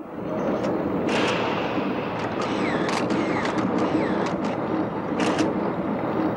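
Crowd noise, starting suddenly, with many sharp clicks of camera shutters scattered irregularly through it.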